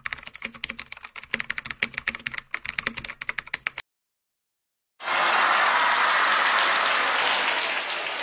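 Rapid keyboard typing clicks for nearly four seconds, then after a second's pause a burst of crowd applause that comes in loud and slowly fades.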